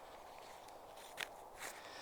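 Two crunching footsteps on forest ground, about half a second apart a little past a second in, over a faint steady background hiss.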